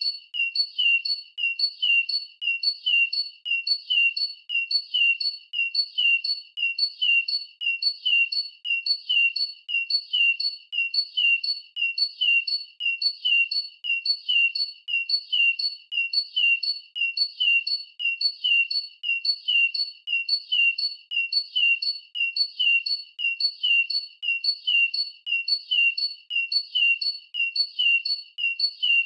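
Bird-call chirp sound effect: short, high, identical chirps repeated in a fast, perfectly even rhythm.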